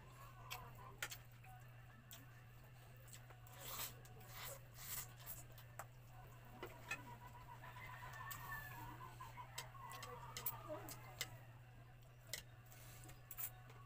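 Eating sounds: metal chopsticks clicking against ceramic bowls and mouth sounds of chewing, as short scattered clicks over a steady low hum.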